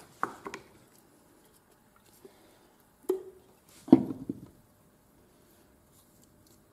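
A few knocks and clunks of a glue pot and tools being set down on a hard work board, the loudest about four seconds in with a short dull ring, followed by faint brushing of glue onto leather.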